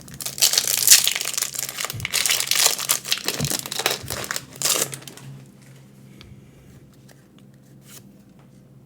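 Foil wrapper of a Pokémon card booster pack crinkling as it is handled and torn open, dense for about five seconds, then settling into a few faint rustles and ticks.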